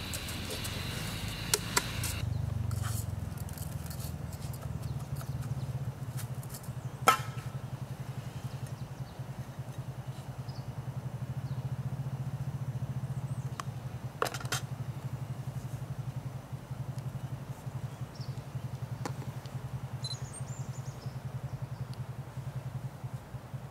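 A small engine running steadily with a low, fast-pulsing drone, with a few sharp clicks.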